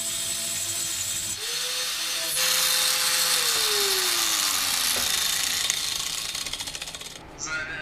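Abrasive cutoff wheel on an angle grinder cutting through a metal exhaust pipe bend: a harsh, steady grinding hiss, with the motor's whine falling in pitch about halfway through as it bogs under load. The cutting noise fades out near the end.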